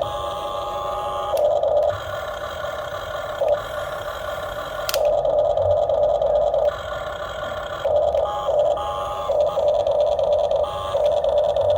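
Remote-control model excavator's electric motor and hydraulic pump whining, starting and stopping in stretches of one to two seconds as the controls are worked, with a sharp click about five seconds in.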